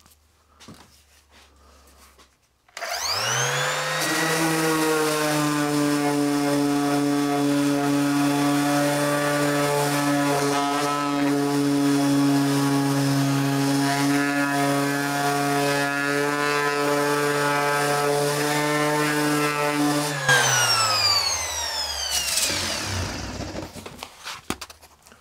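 Makita BO6030 random orbital sander starting about three seconds in with a rising whine, running steadily while sanding pallet wood, then switched off about twenty seconds in and winding down with a falling whine.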